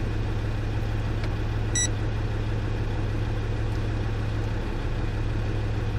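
Land Rover Discovery 2 Td5 five-cylinder turbodiesel idling steadily. A single short electronic beep sounds about two seconds in.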